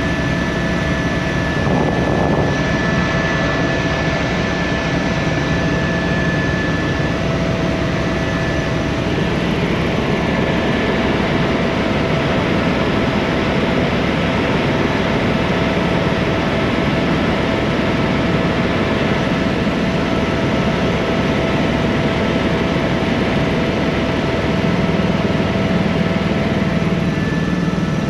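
Helicopter running steadily: a dense rush of turbine and rotor noise with a thin high whine over it.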